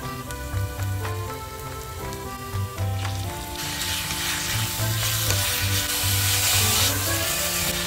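Chopped onion and garlic frying in oil in a non-stick pan with a light sizzle. About halfway through the sizzle gets much louder as raw chicken pieces fry and are stirred with a wooden spatula. Background music with a steady bass line plays throughout.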